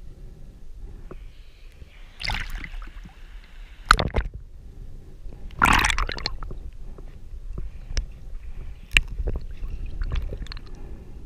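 Water heard underwater: a steady low rumble of moving water, with two gurgling rushes about two and six seconds in and a few sharp knocks.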